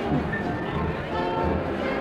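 Live dance band playing, with brass holding long notes.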